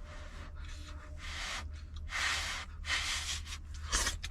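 A person eating noodles, with four short airy slurps a little under a second apart.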